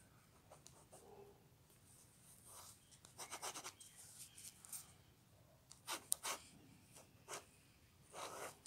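Pencil scratching on paper in short bursts of shading strokes: a quick run of strokes about three seconds in, then a few separate strokes spaced through the rest.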